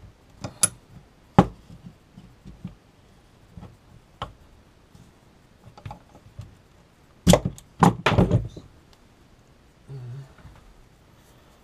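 A steel C-clamp being worked and handled on a workbench: scattered sharp metal clicks and knocks, the loudest one about a second and a half in. A cluster of heavier thunks comes about seven to eight seconds in as the clamp is set down on the bench.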